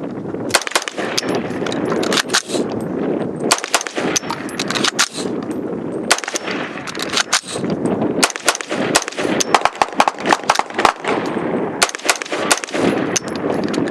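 AR-15 rifle firing single shots in irregular groups over a steady rushing background noise. The pauses between groups mark failures to fire, caused by dummy rounds mixed into the magazine, which are cleared with the charging handle before firing resumes.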